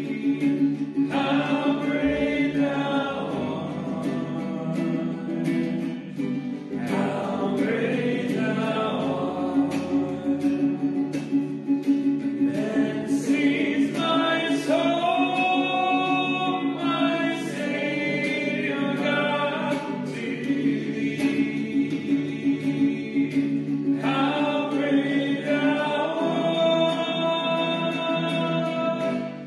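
A hymn sung by church voices over a sustained instrumental accompaniment, in held phrases that change every few seconds.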